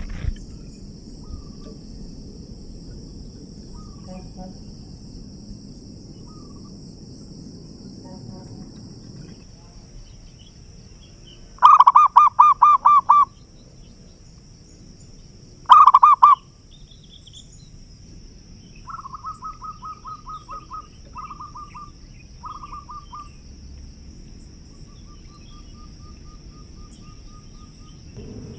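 Zebra doves (perkutut) cooing. A loud rapid series of about eight notes comes about twelve seconds in and a short burst about four seconds later, then several fainter runs of quick notes follow. A steady high insect drone runs underneath.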